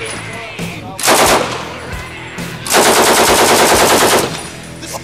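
Johnson recoil-operated light machine gun firing full-auto: a short burst about a second in, then a longer burst of about a second and a half of rapid, evenly spaced shots.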